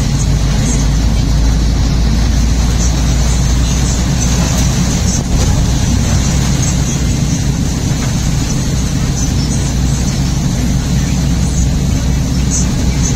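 Steady low rumble of a car driving at speed on a rain-soaked highway, heard from inside the cabin, with an even hiss of wet tyres and rain over it.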